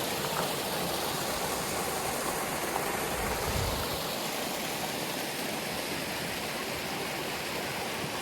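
Steady rushing of water from a small waterfall and stream, with a brief low rumble about three and a half seconds in.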